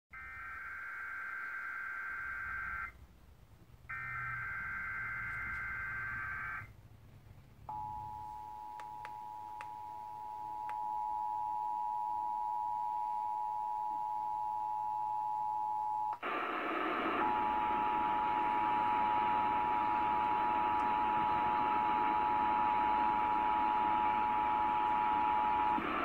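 Emergency Alert System test signal played through a TV speaker. First come two bursts of buzzy digital header tones, each about three seconds long, a second apart. Then the steady two-note attention tone sounds, with a steady hiss joining about halfway through.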